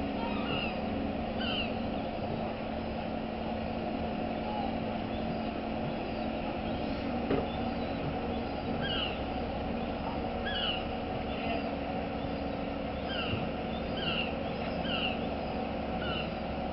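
Kato mobile crane's diesel engine running steadily at working revs while it holds and swings a slung fishing boat, a constant low hum. Short high chirps that fall in pitch come now and then over it.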